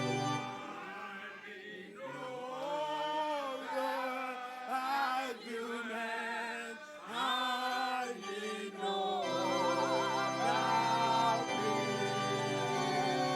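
Gospel worship singing over held chords: a sung melody with vibrato over sustained accompaniment, which changes chord about nine seconds in.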